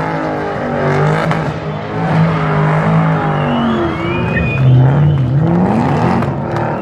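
Ford Mustang V8 revving hard through a smoky donut, the engine note rising and falling as the rear tyres spin. Tyre squeal comes in around the middle.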